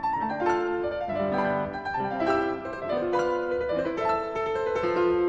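Background piano music, a melody of separate notes that each ring and fade.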